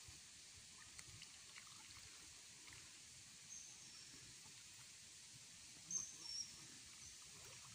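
Near silence: faint outdoor background hiss with a few brief, high-pitched chirps, about four seconds in and again around six seconds in.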